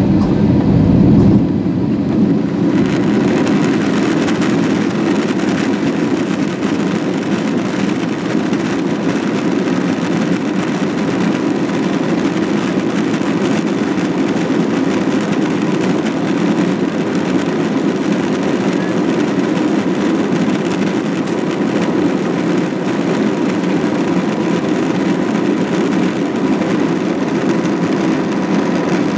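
Cabin noise inside an Airbus A321-200 moving along the ground: a steady, loud engine and rolling rumble, with a broader hiss coming in about two seconds in and holding steady.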